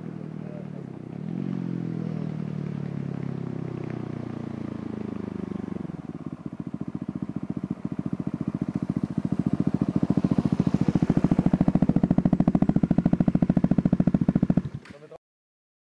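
Husqvarna 701's single-cylinder engine through a Leo Vince exhaust with the dB killer removed: it revs, then grows steadily louder as the motorcycle approaches at speed, its firing pulses coming through as a rapid, hard beat. The sound cuts off abruptly near the end.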